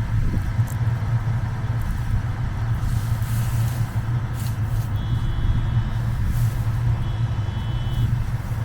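Combine harvester running steadily, a constant low hum.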